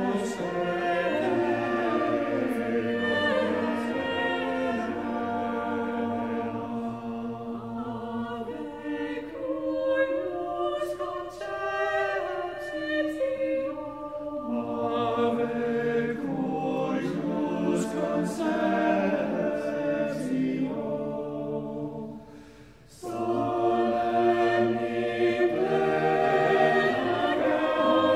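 A cappella choir singing slow, held chords in several parts. The voices break off briefly about three-quarters of the way through, then re-enter together.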